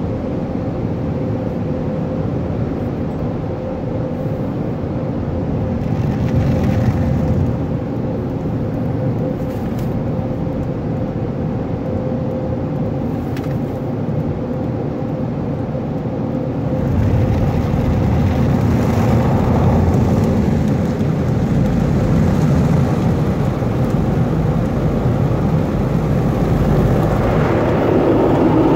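Automatic brush car wash heard from inside the car: brushes, water spray and wash machinery over a steady faint hum. It grows louder about 17 seconds in.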